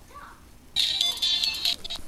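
Music from a phone played through a tiny toy speaker with a hand-held, unsoldered wire connection. The tinny sound bursts in just under a second in and cuts off abruptly about a second later.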